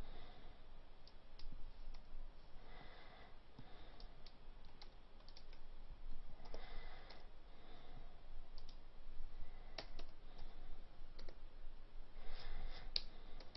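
Irregular clicks of a computer mouse and keyboard, scattered a few seconds apart.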